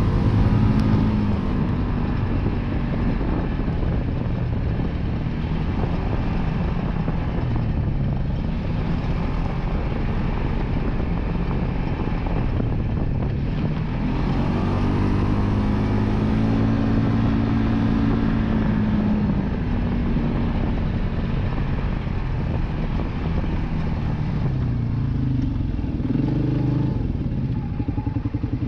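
Polaris Ace 325's single-cylinder engine running under way on a dirt trail, its pitch rising and falling with the throttle, over the steady rush of tyres and wind.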